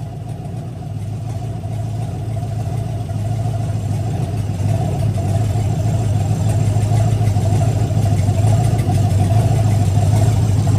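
Carbureted LM7 5.3L LS V8 running steadily on its test stand and gradually growing louder, with popping from exhaust manifold leaks; the manifolds are held on by only two bolts.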